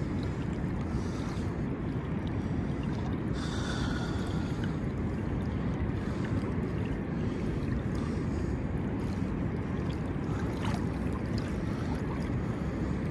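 Wind buffeting the microphone over open water: a steady low rumble with a light wash of moving water.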